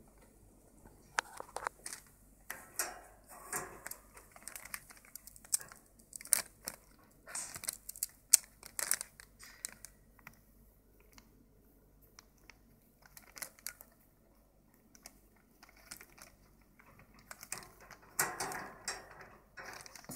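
Irregular crinkling, crunching and clicking from kittens moving about in a newspaper-lined wire cage, in bursts with short quiet gaps between.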